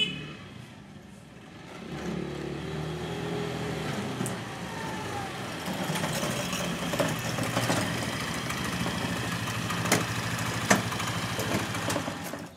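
Motor scooter engine starting about two seconds in and then running steadily, its pitch shifting a few seconds later. Two sharp clicks near the end.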